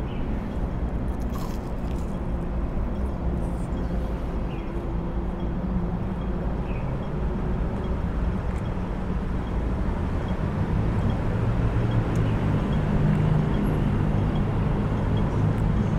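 Steady low rumble of traffic engines, growing louder in the second half, with faint crunching as someone bites into and chews a crispy deep-fried squid-and-shrimp cake.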